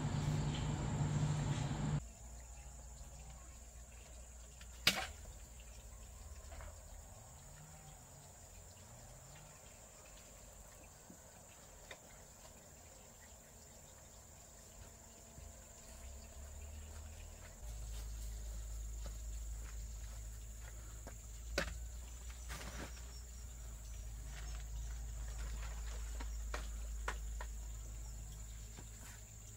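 Outdoor ambience with insects chirring steadily at a high pitch. A low rumble gets louder past the midpoint, and there are a couple of sharp clicks. The first two seconds are louder and noisier.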